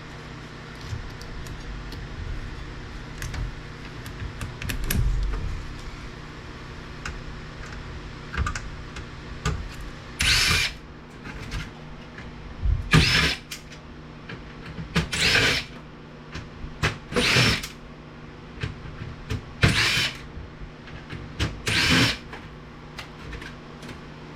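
Cordless drill-driver backing out the screws that hold circuit boards, in six short runs of about half a second each, roughly every two to three seconds, from about ten seconds in. Before that, light clicks and handling of parts.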